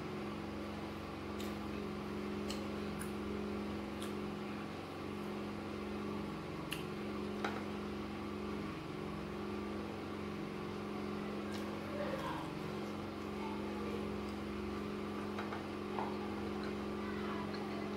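A steady machine hum with scattered light clicks and taps of eating: a spoon against a glass bowl of soaked gari, and fingers picking apart smoked fish.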